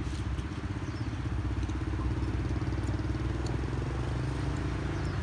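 An engine idling steadily with an even low hum, with a few light clinks of chopsticks and spoons against noodle bowls.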